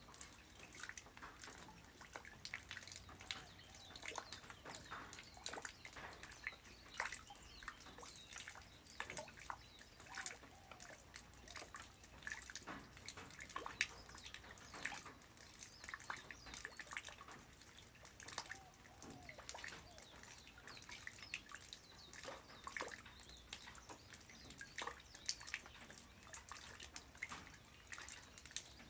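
Light rain falling on the ground: many short, irregular drop impacts over a faint hiss.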